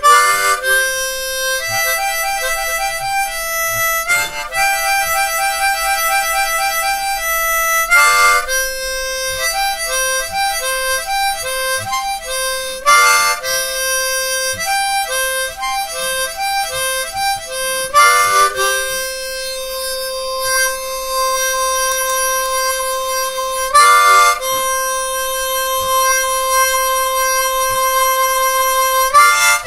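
Harmonica played with the hands cupped around it: long held notes and chords, with a loud chord attack every few seconds and quick warbling notes between about 9 and 13 seconds in.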